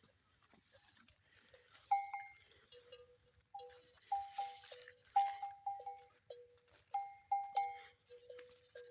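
Animal neck bells clanking repeatedly at two pitches, starting about two seconds in, with a breathy rush of air from the camel, a sneeze, about four seconds in.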